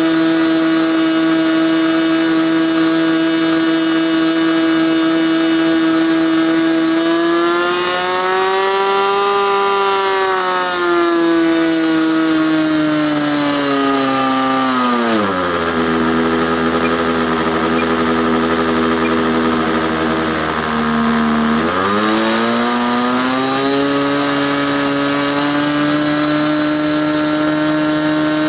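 Model airplane engine of a SIG Kadet LT-40 running on the ground during break-in. It holds a steady mid-throttle note, rises a little about eight seconds in and settles back, then is throttled down to a low idle about fifteen seconds in. It idles for about six seconds while the idle trim is set, then climbs back to mid throttle.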